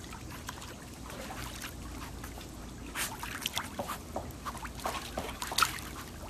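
Pool water lapping and splashing as a dog paddles through it, with a run of small sharp splashes about halfway through and another near the end.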